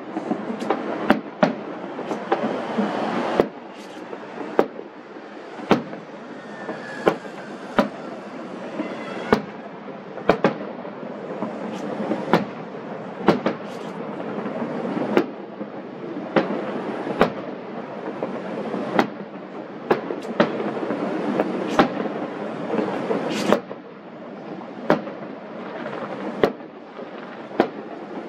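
Distant aerial firework shells bursting in a string of sharp bangs, roughly one a second at uneven spacing, over a steady rushing background.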